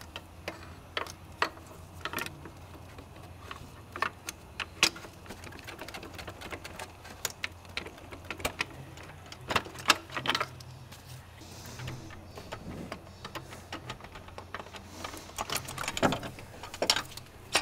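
Irregular clicks and knocks of metal and plastic as hands and tools work a 2010 Jetta's shift tower loose from the top of the gearbox, over a steady low hum.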